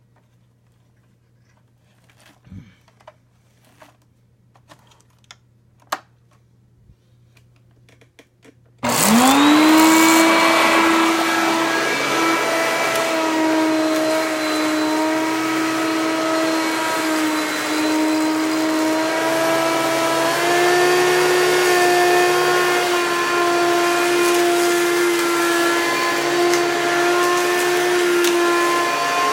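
A few faint clicks and knocks for about nine seconds, then a Hoover PowerMax upright vacuum cleaner is switched on: its motor spins up in a rising whine and settles into a loud, steady run, the pitch stepping up slightly about twenty seconds in.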